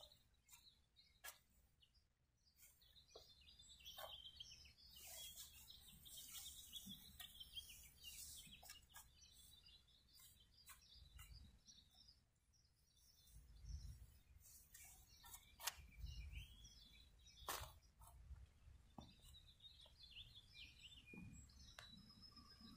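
Faint birds chirping now and then, with scattered short scrapes and clicks of a steel garden shovel being worked into the soil around a tree's root ball.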